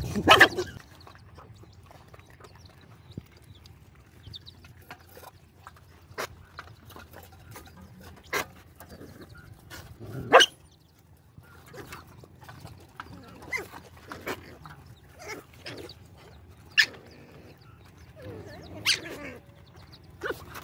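Several dogs eating wet food together from one shared basin, with chewing and lapping sounds. About half a dozen short, sharp sounds are spread through it, the loudest about ten seconds in.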